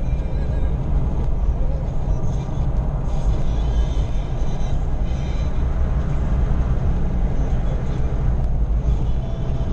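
Steady low rumble of tyre and engine noise heard inside a car's cabin while it drives along a motorway.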